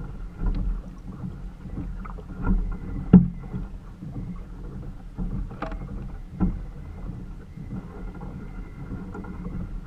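Wind and water against a kayak on the open sea, a steady low rumble, with a few short knocks and clicks from handling on board, the sharpest about three seconds in.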